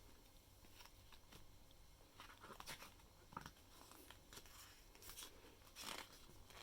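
Faint rustling and soft taps of paper as the pages of a photobook album are handled and turned, with the louder rustles about two and a half seconds in and near the end.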